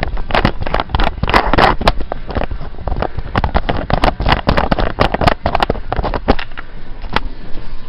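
Handling noise from a hand-held camera being gripped and moved close to the microphone: a dense, irregular run of clicks, knocks and rubs that stops about seven seconds in.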